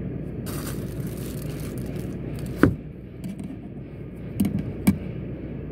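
Toyota Land Cruiser engine idling steadily while it warms up, heard from inside the cabin. A rustle comes about half a second in, a sharp knock about two and a half seconds in, and two lighter clicks near the end.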